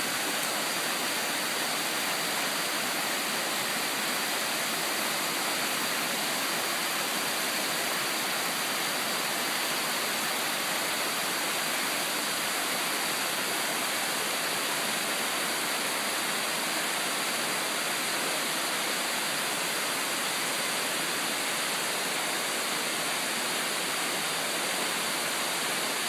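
Steady rushing of a waterfall and the shallow rocky stream below it, water pouring and splashing over boulders.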